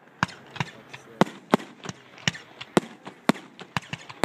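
Fireworks bursting in the sky: a quick, uneven run of sharp bangs and pops, about three or four a second.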